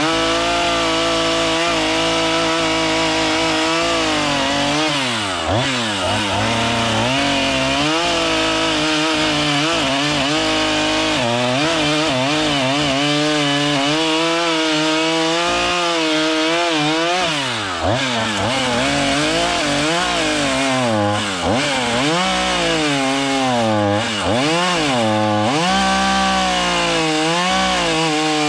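Chainsaw running at high revs while cutting through wood. Its engine pitch dips and recovers several times as the chain loads up in the cut.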